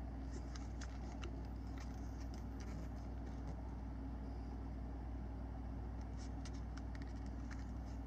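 Faint crackles and small clicks of silicone tape being stretched and pressed around a handheld GPS unit's rubber case, in two bunches, over a steady low hum.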